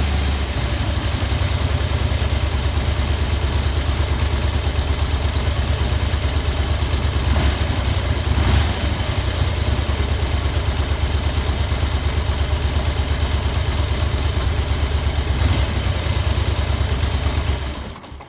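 Harley-Davidson Road King's air-cooled 45-degree V-twin idling with a steady, even pulse, then shut off about 18 seconds in. It is run briefly partway through an oil change, after the first two quarts of oil have gone in.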